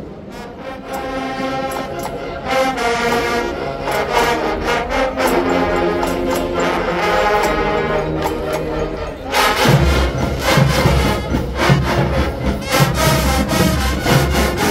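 Student marching band playing: the brass section holds sustained chords, then from about ten seconds in drums and cymbals join with heavy repeated hits under the brass.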